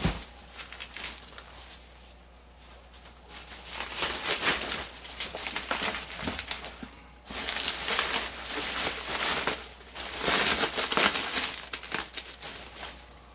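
Plastic bubble wrap crinkling and rustling in irregular bursts as it is handled and pulled off a wrapped item. It is softer for the first few seconds and louder and fuller in the second half.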